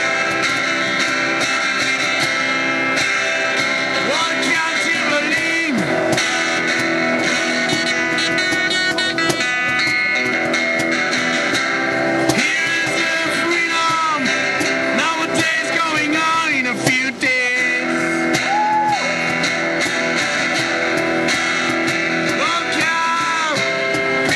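Guitar music with strummed chords, with voices rising and falling over it.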